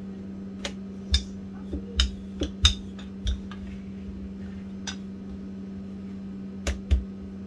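Wooden rolling pin rolling out dough on a silicone mat: irregular sharp knocks and clicks as the pin and its handles strike and shift, several in the first three seconds and two more near the end, over a steady low hum.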